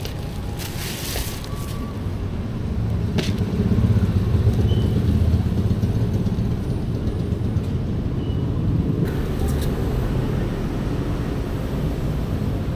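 Steady low rumble throughout, with a brief rustle of a plastic bag near the start and a sharp click about three seconds in as a plastic food tub is opened.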